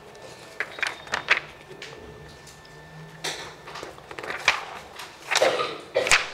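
Paper rustling as the pages of a booklet are flipped through, in several short bursts.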